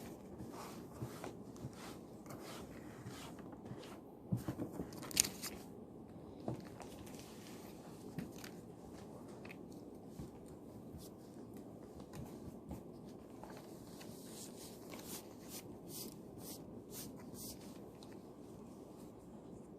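Quiet study-room ambience: a steady low hum with scattered pencil scratches, small taps and paper rustles from working through a math exam on paper, busiest about four to five seconds in.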